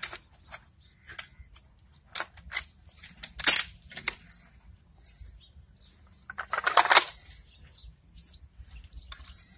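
Baikal MP-155 semi-automatic shotgun being assembled by hand: a string of separate metallic clicks, scrapes and clacks as the parts are fitted together. The loudest is a sharp clack about three and a half seconds in, and a longer metal slide ends in a click near seven seconds.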